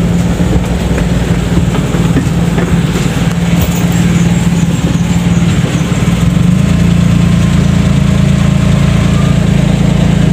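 Daihatsu Charade G10's three-cylinder engine running steadily, heard from inside the cab, its note growing fuller and a little louder about six seconds in.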